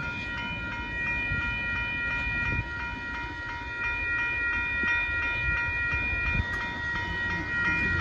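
Railroad crossing warning bells ringing steadily while the gates are down, over a low rumble.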